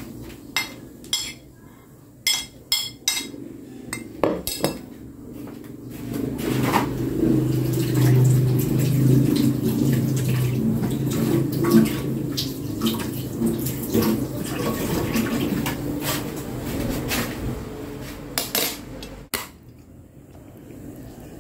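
Plastic food container and plates clattering on a tabletop: a run of sharp knocks and clinks. After that comes a louder steady low hum lasting over ten seconds, with scattered clinks over it, ending in one sharp knock.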